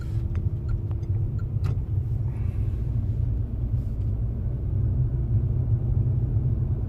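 Steady low rumble of engine and road noise inside the cabin of a Renault Samsung SM7 driving uphill, with a few faint ticks.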